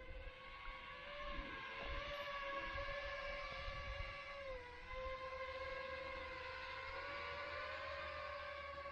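HGLRC Rekon 5 quadcopter's motors and tri-blade props whining at a steady pitch, dipping briefly about halfway through as the throttle eases, over low wind rumble.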